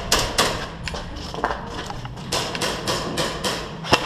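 Scattered sharp cracks and knocks of airsoft fire, single shots and BBs striking hard surfaces, at an irregular pace with a quick cluster near the end.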